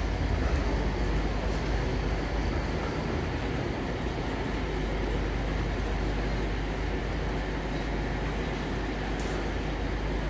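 Class 170 Turbostar diesel multiple unit pulling into the platform, its underfloor diesel engines giving a steady low rumble that eases slightly as it slows.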